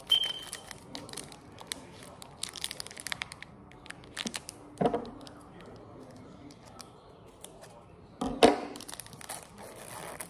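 Foil trading-card pack crinkling and being torn open, with scissors cutting through the wrapper. It is a run of small crackly rustles and clicks, with a few louder tears, the loudest toward the end.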